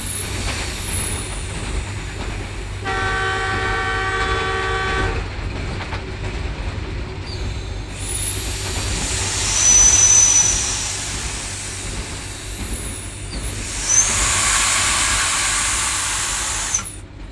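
Pakistan Railways ZCU-20 (GE U20C) diesel-electric locomotive and its passenger train running past with a steady rumble. A chord horn sounds once for about two seconds, about three seconds in. A brief high squeal comes about ten seconds in.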